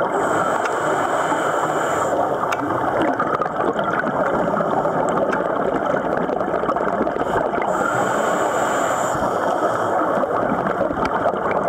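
Underwater sound of scuba diving: a steady gurgling rush of water and bubbles. A thin high hiss, typical of a scuba regulator on the inhale, comes in twice: for about two seconds at the start and again about eight seconds in.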